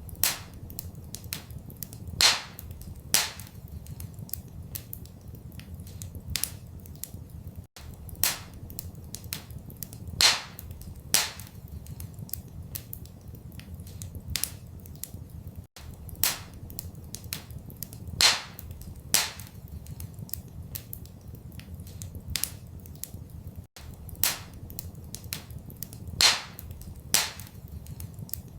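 Wood fire in a fireplace crackling, with frequent small snaps and a few louder pops, over a low steady rumble. The same run of pops repeats about every eight seconds.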